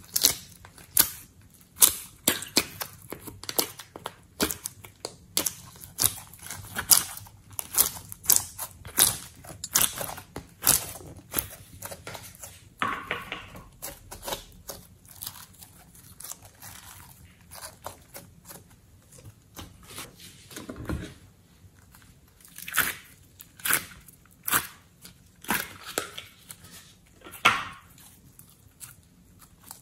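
Slime being squeezed and pressed by hand, making sharp pops and clicks in quick, irregular succession, with a short noisier stretch midway.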